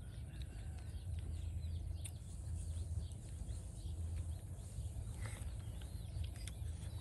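Outdoor ambience: a steady low rumble with faint bird chirps and a few scattered light clicks.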